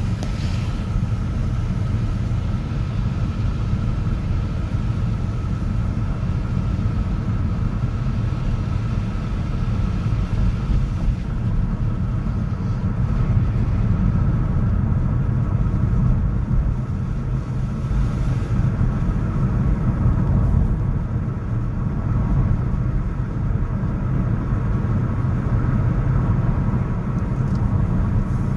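City road traffic: a steady, low, even rumble of many vehicles blended together, with no single vehicle standing out and a faint steady hum above it.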